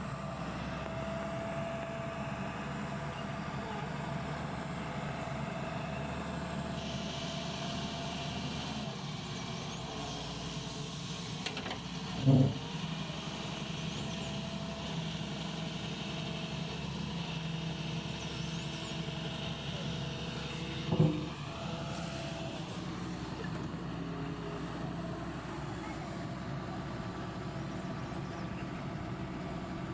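Excavator's diesel engine running steadily, with two short, loud pitched blasts: one about twelve seconds in, another about twenty-one seconds in.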